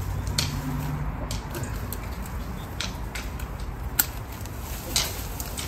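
Secateurs cutting back a low branch: four sharp snips, the loudest about four seconds in.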